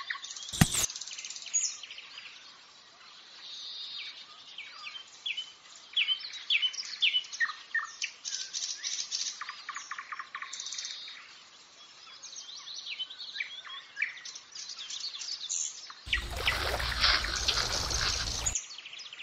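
Small birds chirping and singing, with many short calls and trills, and a sharp click just after the start. About sixteen seconds in, a louder steady rushing noise with a low hum joins for about two and a half seconds, then stops.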